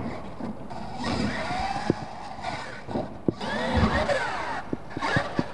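Radio-controlled monster truck's electric motor whining up and down in pitch as the throttle is worked, with several sharp knocks as the truck lands and tumbles on the dirt.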